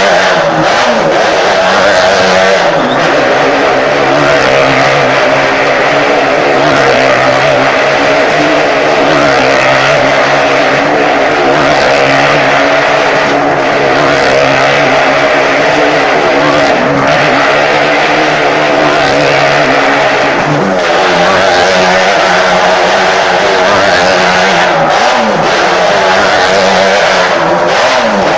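Motorcycle engine running hard at steady high revs as the bike circles the vertical wall of a wooden wall-of-death drum. The revs dip and rise briefly a few times in the last several seconds.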